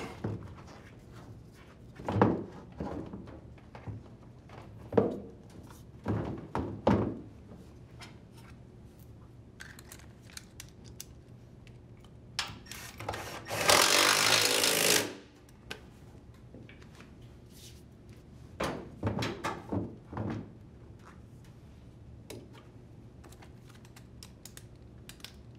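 Heavy thumps and knocks as the washer's tub weights are set in place, then a cordless impact driver runs once, for about a second and a half past the middle, driving a weight bolt, followed by a few more knocks.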